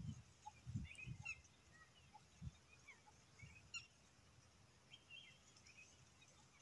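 Quiet lakeside ambience with faint, scattered short bird chirps, and a few soft low thumps in the first few seconds.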